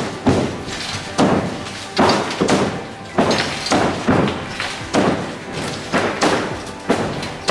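Demolition hammering on brick and concrete: repeated sharp blows, about two a second at uneven spacing, each with a short echoing ring.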